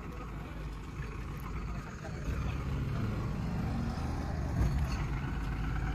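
Heavy construction machine's diesel engine running, getting louder about two seconds in, with voices in the background.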